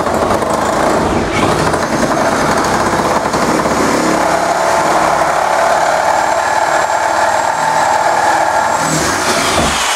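Reciprocating saw running steadily as it cuts down through the wooden stud framing of a built-in.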